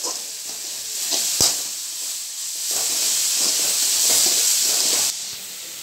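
Chopped onions and green chillies sizzling in hot oil in a metal kadai while a spatula stirs and scrapes them, with one sharp knock about a second and a half in. The sizzle swells in the second half, then drops away suddenly near the end.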